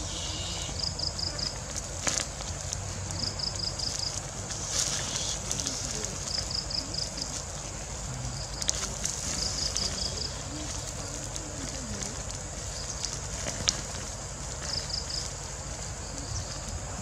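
Open wood fire crackling, with scattered sharp pops over a steady hiss. A high chirp of four or five quick notes repeats five times, a few seconds apart.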